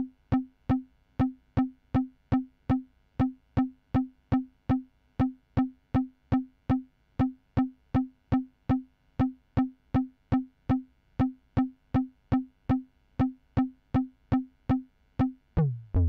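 Electronic percussion: a single pitched hit repeating at a steady pulse, a little over two a second, each hit short and quickly decaying. Just before the end a falling sweep leads into a low pulsing bass.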